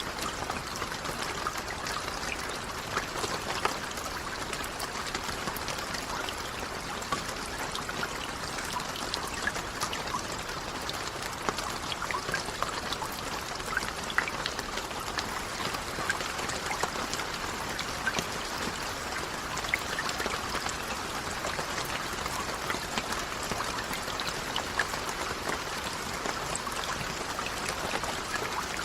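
Steady rain falling, a constant hiss dotted with many small sharp drop impacts, with water trickling.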